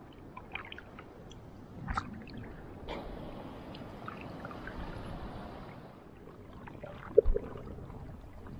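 Paddle strokes in calm water with small splashes and drips and water lapping against an inflatable paddleboard. A short, sharper knock about seven seconds in.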